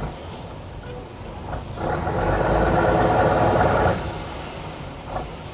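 A horn sounds one steady, flat-pitched blast of about two seconds, starting near the middle, over the low rumble of a fishing boat's engine.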